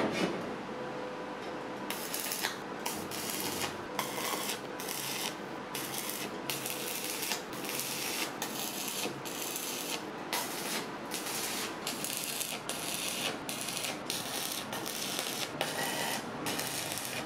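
Electric arc welding on a steel barbecue drum. The arc crackles and hisses in many short runs, each lasting a fraction of a second to about a second, one after another with brief pauses between, as short welds are laid down. It starts about two seconds in.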